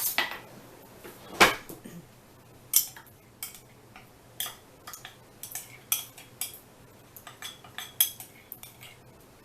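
Kitchen clatter: a spoon and dishes clinking and knocking as sauce ingredients are spooned into a pan, in irregular separate strikes, the loudest about a second and a half in.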